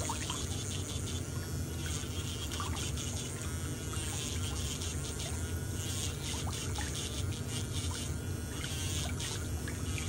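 Water bubbling and trickling in a pedicure foot-spa tub, over a low steady motor hum.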